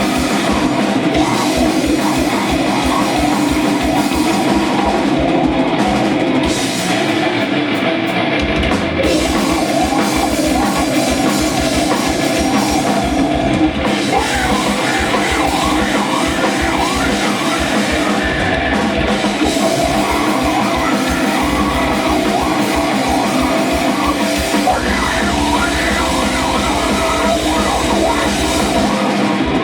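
Loud live rock music from a band on stage, with a fast, driving low drum beat that drops out for a couple of seconds about six seconds in.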